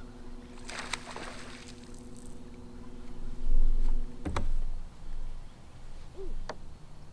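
A cast from the bow of a bass boat: line whirs briefly off the reel about a second in, over the steady hum of the electric trolling motor. The hum stops with a sharp click about four seconds in, and a few faint short calls follow.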